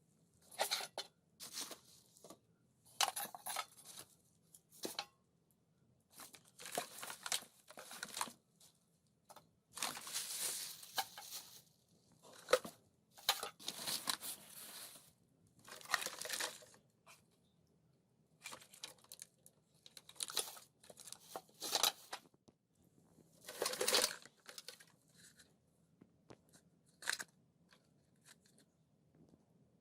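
Close-up handling of an old Nokia 1110's plastic parts: a series of short crackling, scraping bursts, about a dozen of them with quiet gaps between, as the phone is worked apart by hand.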